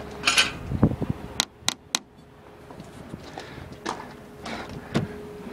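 Handling noise inside a car's cabin: rustling and bumps, then three sharp clicks in quick succession about a second and a half in, followed by scattered light knocks.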